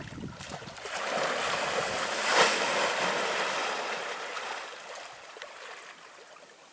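Water splashing and surging as a young African elephant bull wades and plunges through a muddy waterhole. The splashing swells about a second in, is loudest a little after two seconds, then fades away.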